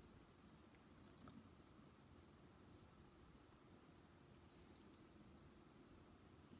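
Near silence: faint room tone with a faint high chirp repeating about every half second, and a few light clicks of glass seed beads being handled.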